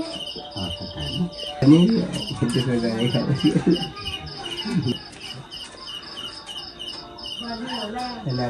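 Night insects chirping in a steady pulsing rhythm, about three high chirps a second, under indistinct voices of people talking.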